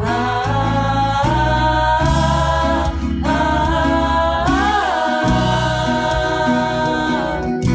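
Live worship band playing a messianic praise song: several women's voices sing long held notes in harmony into microphones over keyboard accompaniment.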